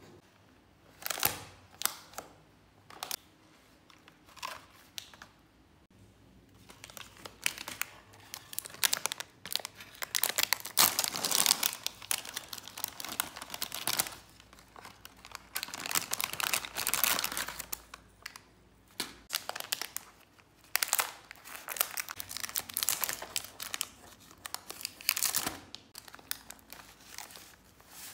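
Plastic food packaging crinkling and rustling in irregular bursts as seaweed sheets are pulled from their packet and a plastic bag of rice paper is handled.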